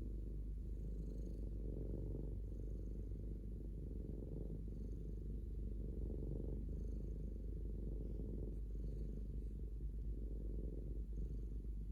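Cat purring, a continuous low rumble that swells and eases with each breath, roughly every two seconds.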